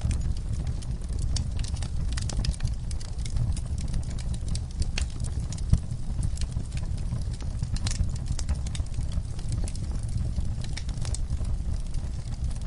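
Wood fire crackling in a fireplace: irregular sharp pops and snaps over a steady low rumble of the flames, with one louder pop about six seconds in.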